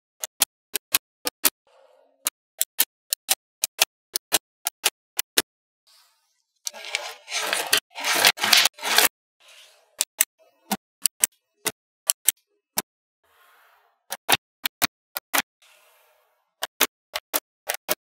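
Small magnetic balls snapping onto one another one at a time: sharp, separate clicks, two or three a second. About seven seconds in, a burst of about two seconds of dense rattling clatter as a cluster of balls knocks and slides together.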